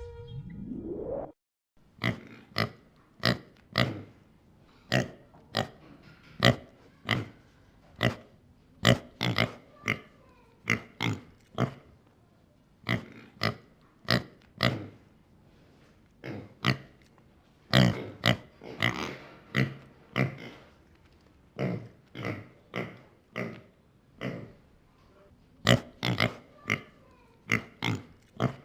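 Pig snorting: many short, sharp snorts at irregular intervals, often about one a second and sometimes in quick runs of two or three. A brief rising tone comes first, ending about a second and a half in.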